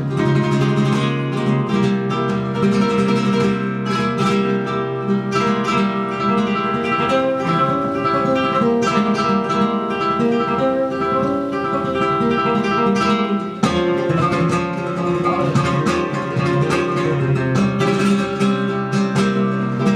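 Flamenco guitar playing, mixing strummed rasgueado strokes with plucked notes.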